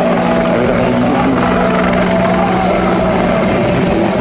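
Mil Mi-24/35 Hind attack helicopter flying past, its twin turboshaft engines and main rotor making a loud, steady noise with a constant droning whine.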